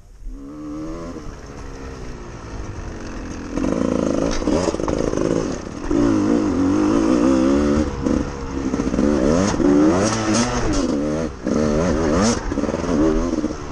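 Dirt bike engine pulling away and being ridden hard, its pitch climbing and falling again and again with throttle and gear changes, with a few brief drops off the throttle. A few short clatters cut through.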